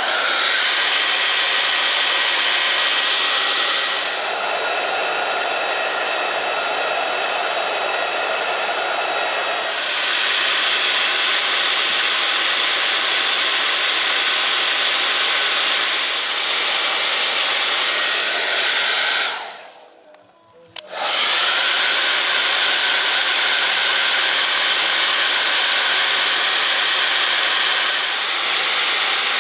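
Hot-air blower running steadily, heating stickers on a window glass to soften their adhesive so they peel off. It cuts out for about a second around two-thirds of the way through, then starts up again.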